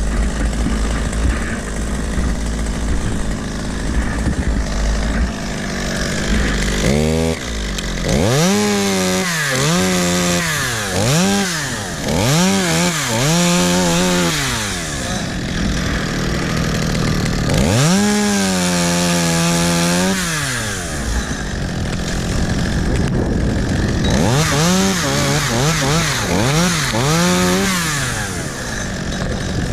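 Chainsaw revved up and down in repeated short bursts while cutting wood, each burst climbing to full throttle, holding, then dropping back. Low wind rumble on the microphone before the saw comes up to speed about seven seconds in.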